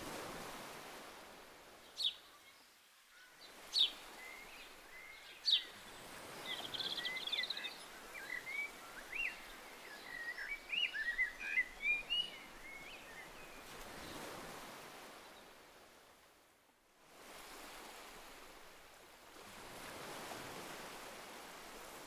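Sea waves washing in and drawing back, rising and falling every few seconds. Over them a bird gives three sharp high calls in the first few seconds, then a quick twittering song for several seconds.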